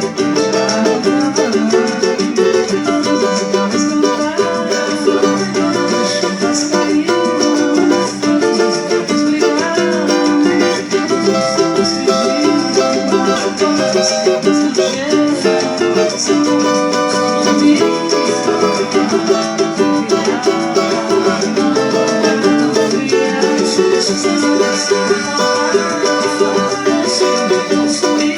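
Cavaquinho strumming samba chord changes in a steady rhythm.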